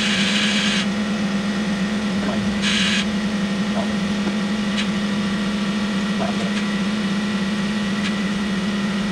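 Isuzu NPS truck's engine running at a steady idle, a constant even hum. A hiss cuts off about a second in and comes back briefly near three seconds.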